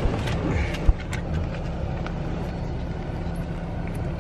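Steady low rumble of a running car heard from inside the cabin, with rustling and a few small knocks from the phone being handled. The rumble drops off suddenly at the very end.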